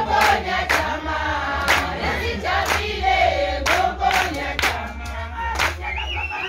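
A group singing and chanting together to a steady beat of hand claps, about two claps a second.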